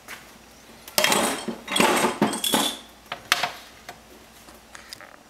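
Glass bowl, jars and plastic containers clinking and sliding against each other on a refrigerator shelf as things are moved to make room, followed by a few sharp clicks.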